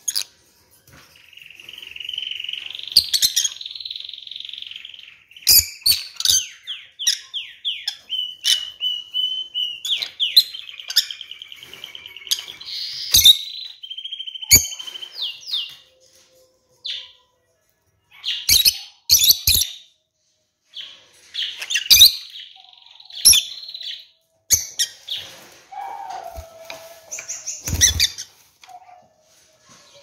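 A pair of caged lovebirds, one of them a rosy-faced lovebird, chattering in rapid high chirps broken by sharp shrill calls. There is a short lull a little past the middle and a low thump near the end.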